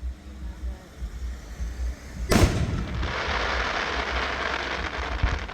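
Aerial firework shell bursting with one loud boom a little over two seconds in, followed by a few seconds of dense crackling.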